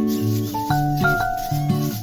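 Background music: a light instrumental tune with plucked guitar-like notes over a bass line.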